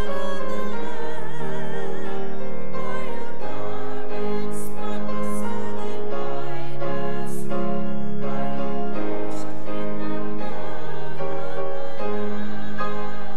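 Music with singing: voices with vibrato over sustained chords, the notes changing every two to three seconds.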